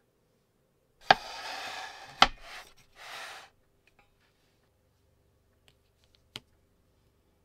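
Hands handling small objects: a sharp click, a second of rustling, a second sharp click, two more short bursts of rustling, and one more click near the end.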